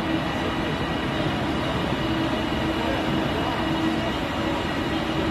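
Two coupled TransPennine Express Class 397 electric multiple units running along the platform: a steady rolling rumble of wheels and running gear, with a hum that comes and goes.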